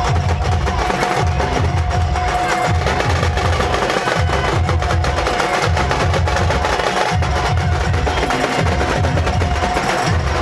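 Procession drums beating a steady, repeating rhythm, with one high note held over them throughout.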